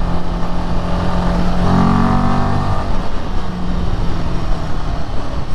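Royal Enfield Himalayan 450's single-cylinder engine running at speed on the road, with a steady note and rushing noise. The engine note swells and rises briefly about two seconds in.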